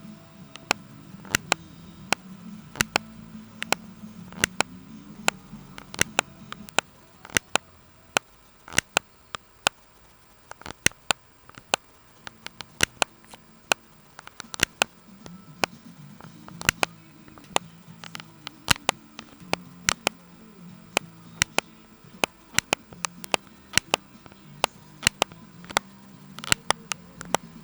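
Computer keyboard keys clicking in irregular sharp taps, about two or three a second, over faint soft music.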